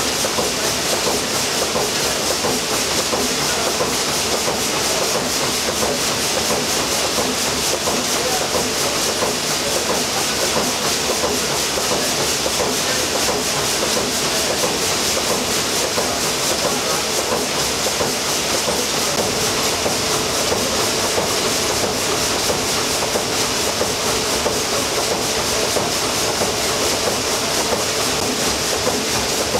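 SS Shieldhall's 800 hp triple-expansion reciprocating steam engine running steadily at speed: a continuous steam hiss over a fast, even clatter from its moving rods and valve gear.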